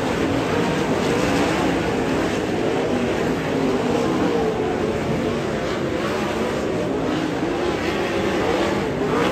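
A pack of 410 sprint cars racing, their 410-cubic-inch methanol-fuelled V8 engines rising and falling in pitch as they come on and off the throttle through the corners, with a rising rev near the end.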